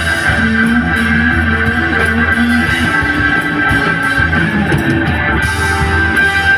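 Live rock band playing an instrumental passage: electric guitar over organ, bass and drums, with a steady level throughout.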